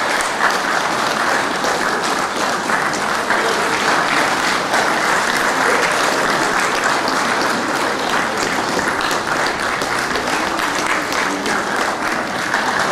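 An audience applauding steadily, the dense clapping of many hands.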